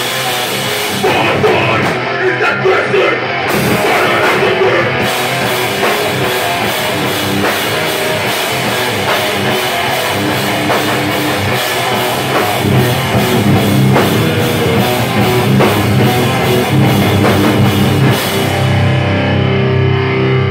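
Hardcore punk band playing live: distorted electric guitars and bass over fast, pounding drums and cymbals. Near the end the drums and cymbals drop out, leaving the guitars ringing.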